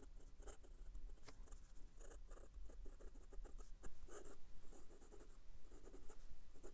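Hongdian 1845 fountain pen's number 6 steel nib scratching across notebook paper in short, irregular strokes as handwriting is written. The nib is a little scratchy in both directions, which is audible on the page.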